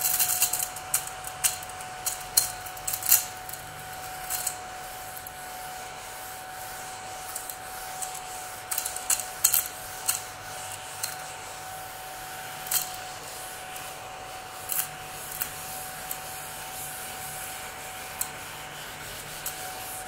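Crumby battery-powered 12,000 RPM mini vacuum running with a steady whine as it is pushed along a table, its brushes rubbing the surface while it sucks up potato chip crumbs. Crumbs click against it, often in the first few seconds and again about nine seconds in, then only now and then.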